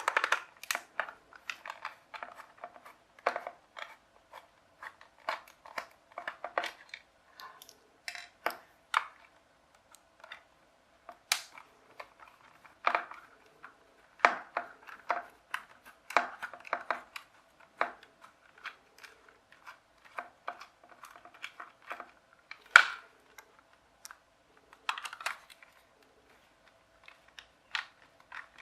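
Plastic toy gun casing being handled and unscrewed during disassembly: irregular clicks, taps and knocks of hard plastic, screws and a screwdriver, with a faint steady hum underneath.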